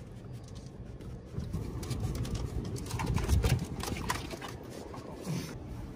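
A raccoon clambering about inside a car: light clicks and scratches from its claws on the seats and dashboard, over a low rumble that swells in the middle and fades.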